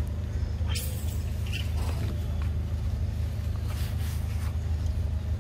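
A steady low hum throughout, with a few brief crackles and rustles of branches and leaves as monkeys climb a tree, about a second in, around two seconds and near four seconds.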